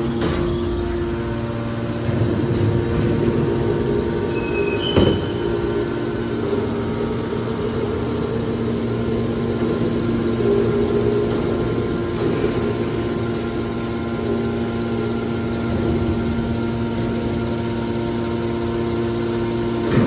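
Hydraulic power unit of a scrap metal baler, its electric motors driving the hydraulic pumps, running with a steady hum. A single sharp metallic knock comes about five seconds in.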